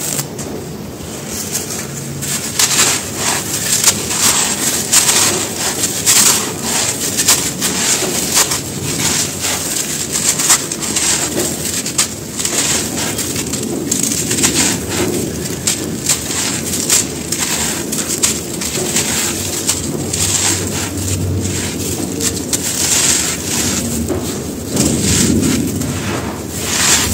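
Hands crushing and crumbling dry, dusty molded shapes and raking through loose powder: a dense, continuous crunching with many small sharp cracks.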